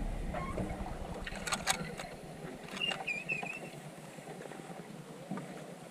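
Paddle strokes on a solo canoe, with water swishing and dripping, two or three sharp knocks about a second and a half in, and a short high warbling note around three seconds in.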